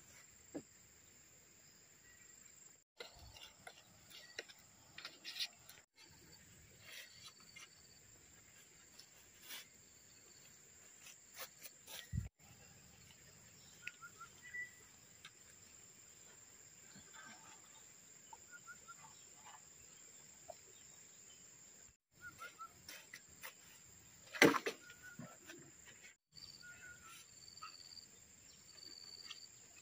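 A steady high insect drone with scattered short bird chirps, broken by occasional knocks and rustles of bamboo poles being handled; the loudest is a single knock about two-thirds of the way through.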